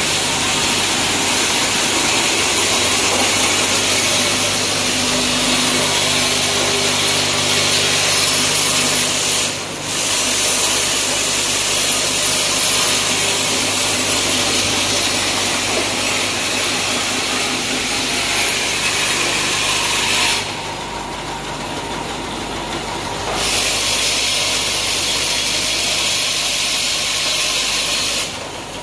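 Automatic pin-assembling and packaging machine running: a steady dense hiss over a low mechanical hum. The hiss drops away briefly about a third of the way in and again for a few seconds about two-thirds through.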